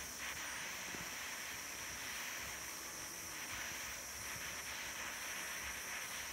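Small butane camping jet torch burning with a steady hiss, its flame heating a tinplate patch over a hole in a radiator for soldering.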